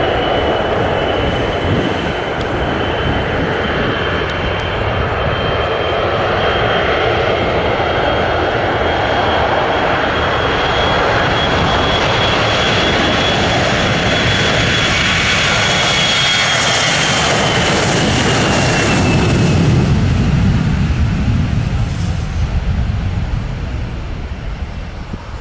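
An airliner's engines passing close by. A steady high whine under a loud rumble drops in pitch as the aircraft goes past, about three-quarters of the way through; the noise peaks there, then the rumble fades away.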